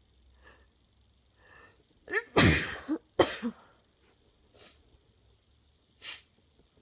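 A woman sneezing twice in quick succession, each sneeze preceded by catching breaths and a rising build-up. Two short breaths follow the sneezes.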